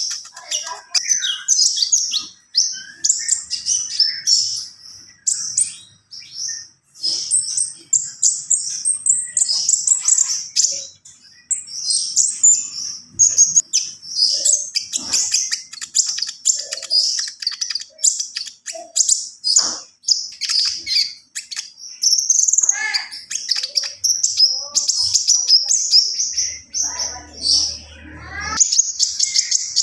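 A caged konin songbird singing in full voice: a fast, almost unbroken run of high, varied chirps and trills packed with fill-in phrases.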